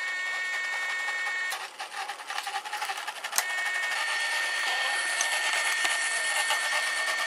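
Electric "points on" warning buzzer of a garden model tramway giving a steady high buzz, which signals that the points are set. About a second and a half in it breaks off for a stretch of rattling, then a sharp click, and a similar steady buzz takes up again.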